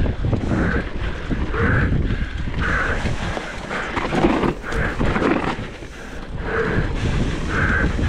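Mountain bike descending a rough trail at race pace: wind buffeting the microphone, with the rattle and knocks of tyres and bike over the ground.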